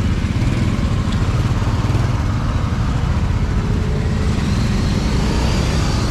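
Steady street traffic, motorbike and car engines running.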